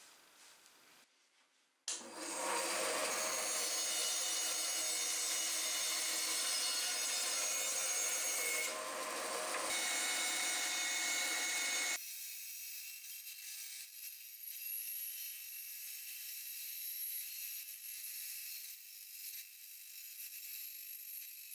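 Band saw cutting a wooden board along a pencil line, coming in suddenly about two seconds in with a steady motor hum under the noise of the blade in the wood. About halfway through the sound turns abruptly quieter and thinner.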